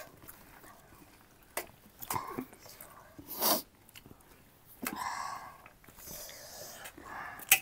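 Close-up eating sounds: sharp crunches and mouth smacks from chewing crunchy chatpate, with breathy sniffs and intakes of breath in between. The loudest is a short noisy burst about three and a half seconds in.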